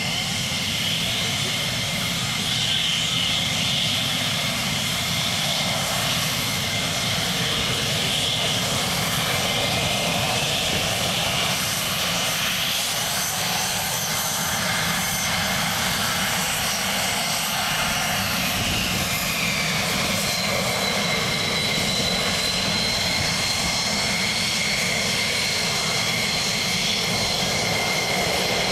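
F-16D fighter jet's single turbofan engine running, a steady loud roar with a high whine on top; about two-thirds of the way through, the whine shifts to a higher pitch.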